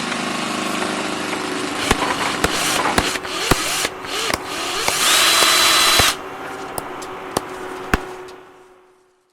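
A power tool running, with sharp knocks at irregular intervals and a louder stretch with a high whine about five seconds in. The sound fades away near the end.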